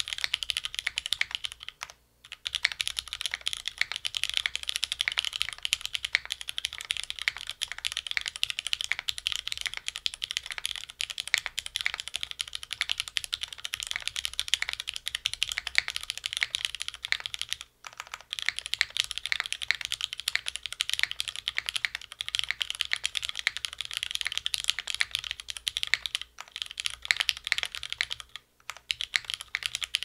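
Continuous typing on a Ji-Eun 60% custom mechanical keyboard with lubed, retooled Cherry MX Red linear switches, an aluminium plate, gummy O-ring mount and GMK keycaps: a dense, crisp patter of keystrokes. It breaks off for a moment about two seconds in, again a little past the middle, and twice near the end.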